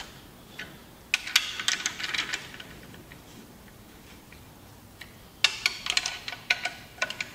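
Hand ratchet clicking as it runs down the main bearing cap bolts on a John Deere 6404 engine block: two spells of rapid clicks, the first about a second in and the second a little after the middle, with a quieter gap between.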